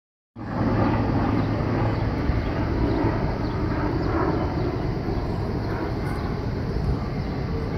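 Steady low rumbling background noise outdoors, starting just after the beginning and running on evenly with no distinct events.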